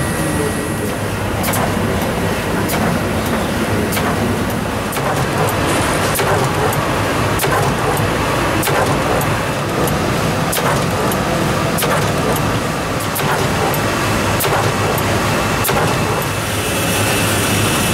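Automatic roll-to-roll screen-printing press running: a steady mechanical drone with short clicks and knocks about once a second from the web feed and print stroke. A high steady whine with a hiss joins near the end.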